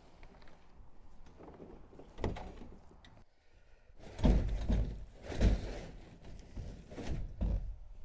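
A series of dull knocks and thumps: one about two seconds in, a louder cluster from about four to five and a half seconds in, and two more near the end.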